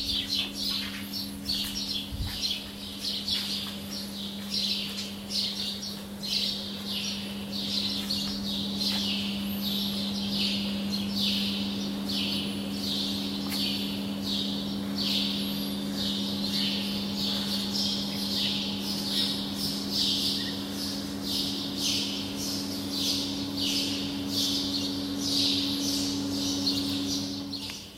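Birds chirping rapidly and without pause, many short high calls a second, over a steady low hum.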